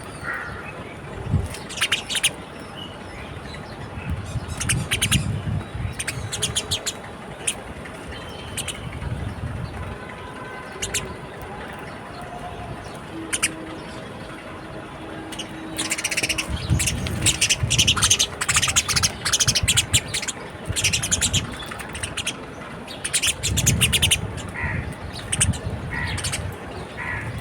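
Birds chirping and tweeting at a balcony feeder in many quick, sharp calls, thickest in the second half, with a few stretches of low rumbling noise underneath.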